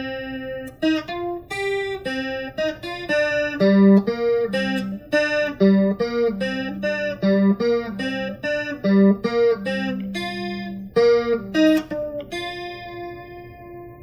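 Electric guitar picking a melody of single notes, a new note every fraction of a second. It ends on one held note that rings and fades away near the end.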